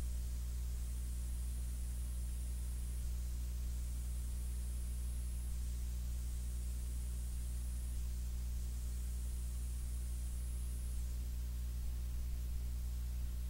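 Steady low electrical hum with its overtones over a faint hiss, from the recording chain with no programme sound on it. A faint high whine comes and goes every two or three seconds.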